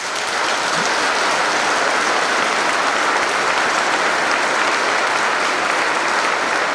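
A large audience applauding. The applause breaks out at once and holds steady.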